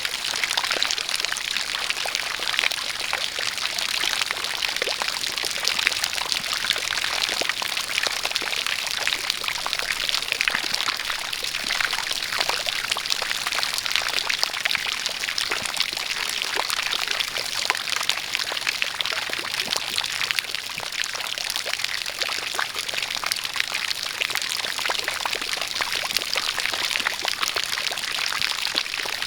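A jet of water pouring and splashing steadily, with rain falling and many small drip and splash ticks.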